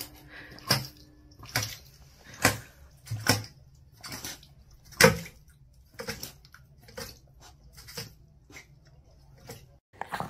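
Dog splashing with its muzzle in a stainless-steel water bowl: a run of separate wet splashes and clinks, roughly one a second, the loudest about five seconds in.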